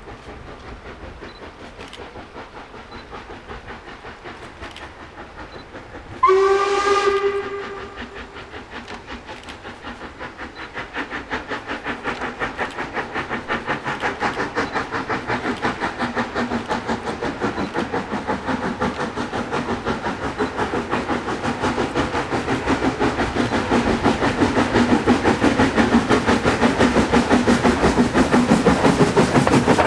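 Steam locomotive 46100 Royal Scot, a three-cylinder 4-6-0, gives one short whistle blast about six seconds in, the loudest sound here. Then its exhaust beats come in fast and even and grow steadily louder as it draws nearer with its train.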